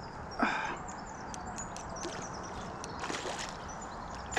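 A hooked trout splashing at the surface close to the bank: a short splash about half a second in and a weaker one around three seconds in. Light clicks sound over a steady background hiss.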